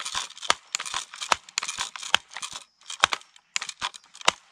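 BARRA Sportsman 900 multi-pump air rifle being pumped repeatedly, about one stroke a second: sharp plastic-and-metal clacks of the pump lever with a rushing hiss of air between them as each stroke charges the air chamber.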